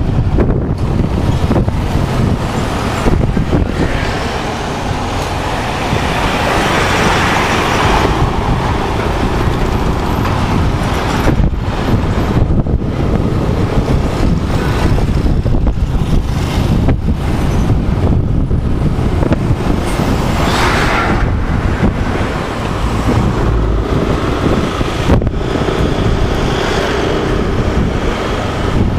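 Motorcycle riding along a town street: steady wind rumble on the handlebar-mounted microphone over the bike's engine and the passing traffic, with a brief louder passing-vehicle sound about two-thirds of the way through.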